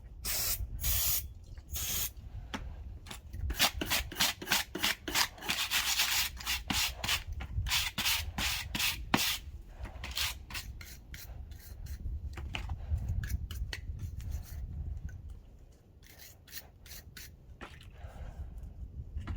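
Repeated, quick scraping strokes of hand-cleaning on a front brake part, with pauses between runs of strokes and fewer strokes near the end.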